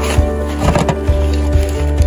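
Background music: sustained notes over a steady bass, with short percussive hits.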